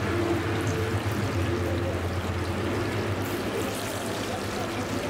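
Spiced fish deep-frying in hot oil in a large iron karahi: a steady sizzle and bubbling with small crackles.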